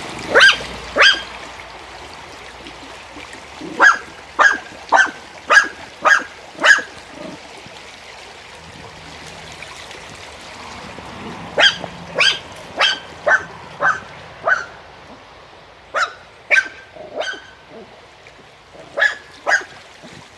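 Small dog barking at a running stream: about twenty short, sharp barks in bunches of two to six, roughly two a second, with pauses between, over the steady rush of the water.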